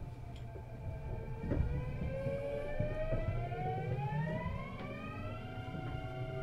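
Kintetsu 9820 series train's Mitsubishi IGBT-VVVF traction inverter whining as the train accelerates: a set of tones rises together in pitch from about a second and a half in, then levels off around five seconds in, over the low rumble of the running train.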